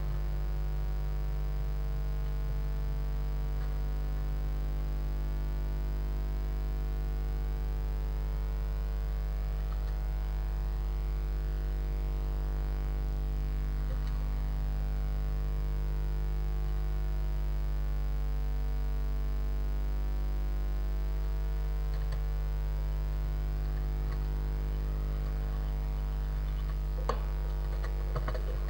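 Steady electrical mains hum on the audio line, with one faint click near the end.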